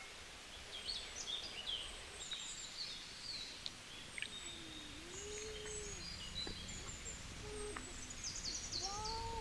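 Birds chirping and trilling throughout, with a few slower, lower calls that rise and fall, over a faint outdoor background.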